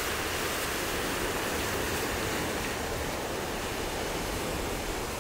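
Ocean surf: waves breaking and washing in, a steady rushing noise.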